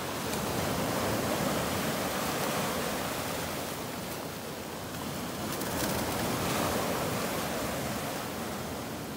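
Shallow surf washing up and draining back over a shelly beach, a steady rush that swells twice, near the start and again about two-thirds of the way through.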